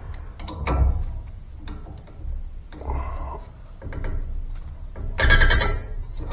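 Hand-tool and pipe-fitting work noise: irregular metallic clicks and rattles, with a louder rattling scrape about five seconds in.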